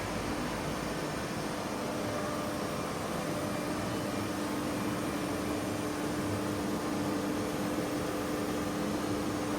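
Soraluce FS 8000 moving-column bed milling machine running under power: a steady hum with a constant tone over a background hiss.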